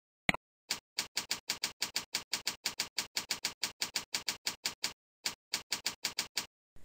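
Computer keyboard typing: a single click, then evenly spaced keystrokes at about five a second, with a short pause a little after the middle before the typing resumes.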